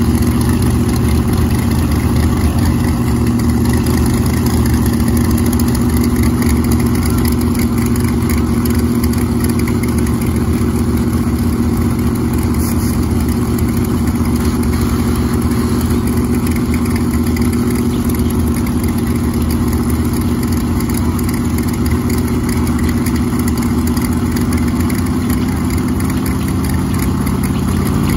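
Big-tire Buick Regal and Malibu wagon street-race cars idling loudly and steadily at the starting line, with no revving.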